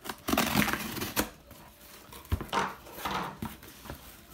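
A knife slicing along the packing tape of a cardboard box, then the cardboard flaps being pulled open, with scraping, rustling and a couple of sharp knocks.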